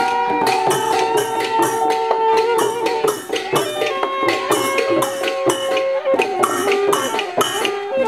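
Music with a quick, even percussion beat under held melody notes.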